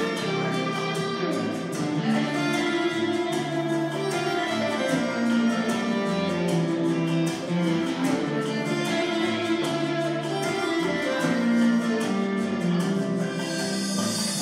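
Electric guitar playing a melody of held notes, with bass notes and a steady beat behind it.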